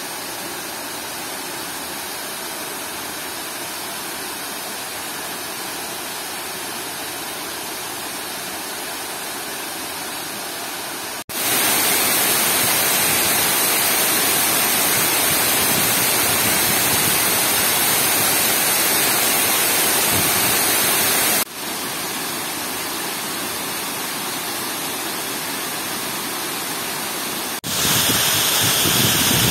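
Water overflowing the Upper Manair Dam's masonry spillway, a steady rush of water cascading down the sloping face. It turns abruptly louder about eleven seconds in, drops back somewhat about ten seconds later, and turns louder again near the end.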